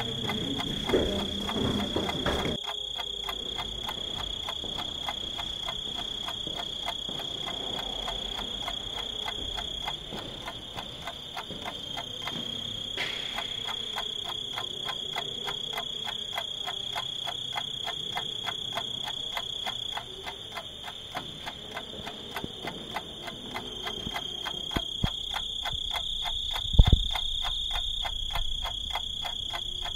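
An insect-like chorus: a steady high-pitched chirring with a fast, even pulse. A single low thump comes near the end.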